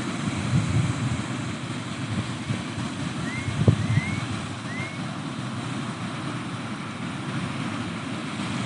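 Steady rush of Pacific Ocean surf and wind, with wind gusts buffeting the microphone now and then. Three short rising chirps come in quick succession a little past the middle.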